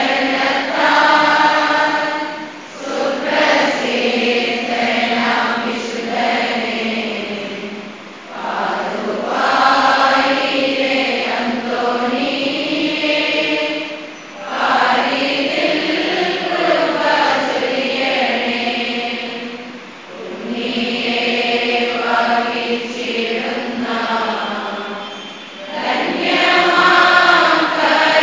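Several voices singing a church hymn together in long phrases of about six seconds, each followed by a brief dip before the next.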